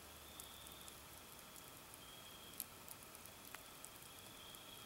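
Near silence: a faint hiss with a couple of tiny ticks.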